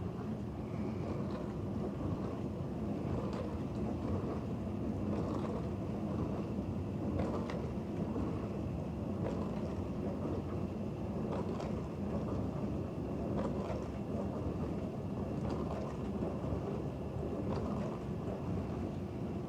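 2019 GE 24-inch portable dishwasher running its wash cycle empty: a steady low rush of the pump circulating water through the spray arms, with faint splashes against the stainless tub every second or two.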